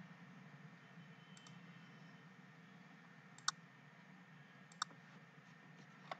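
Three computer mouse clicks, each about a second and a half after the last, over faint steady background noise.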